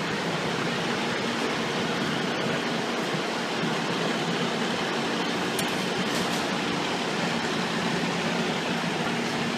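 Steady hum of idling fire trucks parked at the curb, an even wash of noise with a faint low drone under it.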